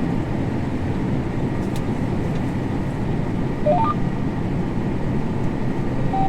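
Combine harvester running steadily, heard from inside the cab. A quick rising run of four electronic beeps sounds a little past halfway, and a single beep near the end.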